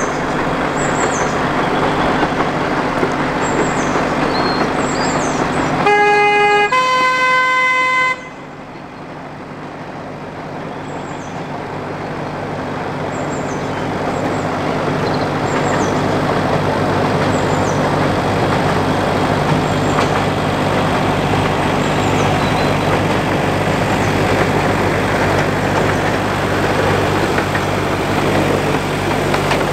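Small narrow-gauge diesel locomotive running, with a two-note horn blast about six seconds in, the second note longer. After the horn the engine and train noise fall away suddenly, then grow steadily louder as the locomotive draws near.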